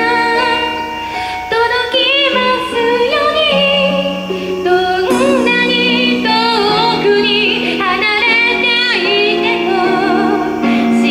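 A woman singing a pop ballad with instrumental accompaniment, holding long notes with vibrato.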